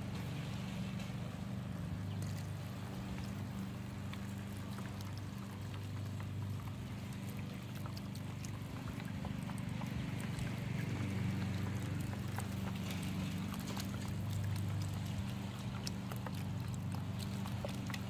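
Chicken broth poured in a stream from a carton into a cast iron dutch oven of hot chicken and vegetables, with small pops and crackles from the pot. Underneath is the steady low hum of a propane camp-stove burner.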